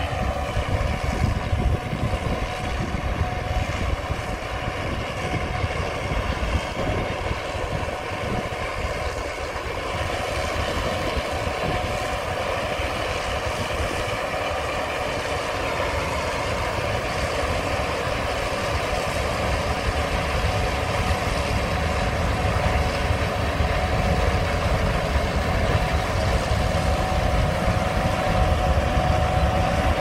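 Gleaner S77 combine harvester running while picking up swathed oats: a steady machine drone with a constant whine, growing louder as the combine draws near.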